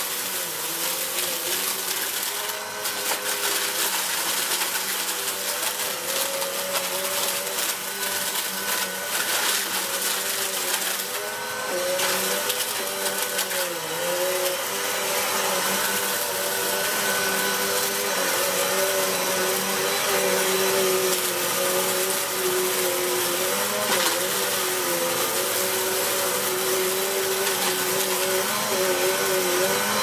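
A Vax Energise Pulse Pet 750 W bagless upright vacuum cleaner running steadily as it is pushed back and forth over carpet. Its motor note wavers a little as the machine moves.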